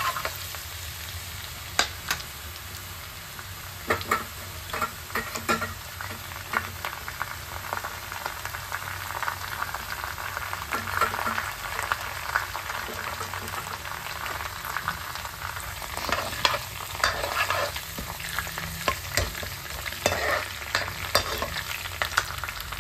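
Chopped garlic frying in hot mustard oil with cumin and fenugreek seeds in a kadhai, sizzling steadily as it is stirred, with scattered sharp knocks and scrapes against the pan.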